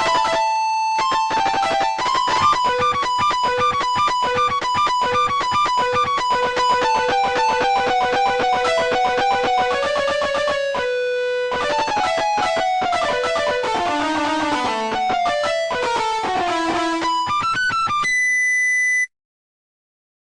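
Guitar playing a fast melodic run of quick single notes, with a short break about halfway through. It ends on a brief held tone and then cuts off abruptly, about a second before the end.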